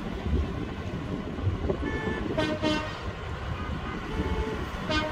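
Tractor horns tooting in short blasts, one a little past halfway and another starting near the end, over the low rumble of the approaching tractor convoy's engines.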